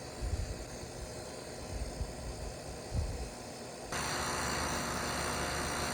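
Low bumps and rumble, then about four seconds in a steady fan whoosh with a machine hum starts abruptly: full-size outdoor heat pump units running.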